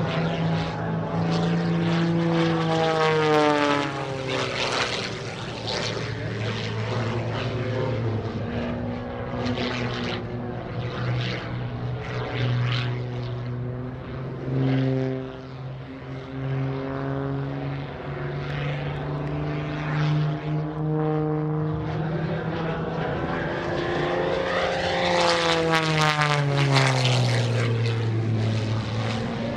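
MXS-RH aerobatic monoplane's piston engine and propeller running during aerobatic manoeuvres overhead. The note drops in pitch a couple of seconds in, then climbs and drops again near the end as the plane passes and changes power.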